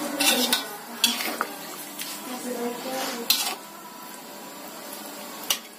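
Metal ladle stirring and scraping in an aluminium wok of chicken simmering in soy-sauce gravy, with a few sharp clanks of metal on the pan, loudest about a second in and just past three seconds in.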